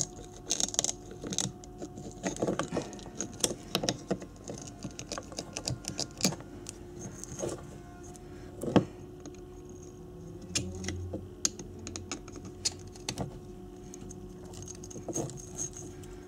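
Small screwdriver picking and scraping old enamelled copper winding wire off a Honda CB250N stator's low-speed ignition coil: irregular light clicks and scratches of metal on the coil, with a faint steady hum underneath.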